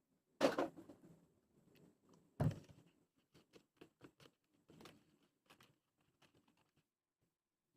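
Two sharp knocks, then a run of light clicks and taps, as of plastic containers and measuring utensils being set down and handled while mixing a borax activator.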